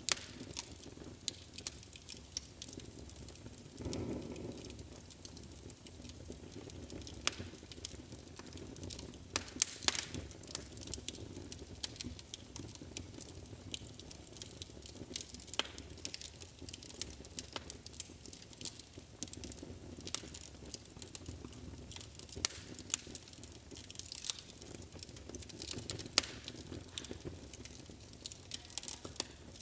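Wood fire burning in a fireplace, crackling and popping with irregular sharp snaps over a soft steady rumble of the flames; a brief low whoosh about four seconds in.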